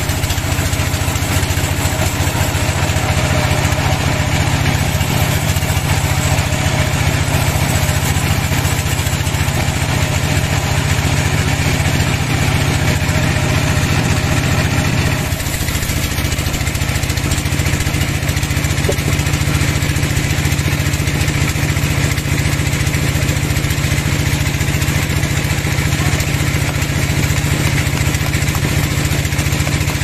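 Vertical band sawmill running steadily as its blade rips lengthwise through a large log, a continuous loud machine drone. The drone's tone shifts slightly about halfway through.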